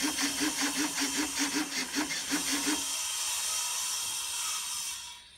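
Model airplane's elevator servo being driven back and forth, buzzing in quick pulses about five times a second. About three seconds in the pulsing gives way to a steadier hiss, which stops shortly before the end.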